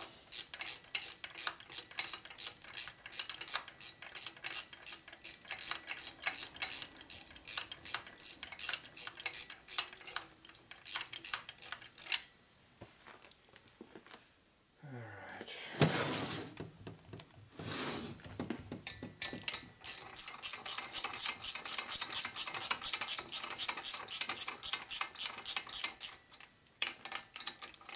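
Ratchet wrench clicking rapidly and evenly, about four or five clicks a second, as it runs down the cylinder head bolts on a Harley shovelhead engine. It stops about halfway for a few seconds, with a couple of brief louder noises, then clicks on again.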